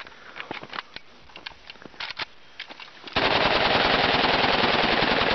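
A few scattered clicks and knocks as the rifle is handled. About three seconds in, an AKS-74U carbine in 5.45×39 opens up in one long, unbroken full-auto burst.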